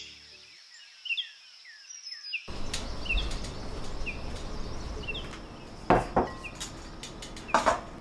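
Small birds chirping, short downward-sliding chirps repeated every second or so over a steady background hiss. Two sharp knocks stand out, about six and seven and a half seconds in.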